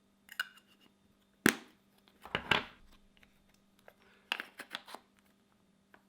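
Plastic clicks and handling noises from a phone lens cover being fitted and worked on the phone: a sharp snap about a second and a half in, then a few quicker clicks around the middle and again a little later.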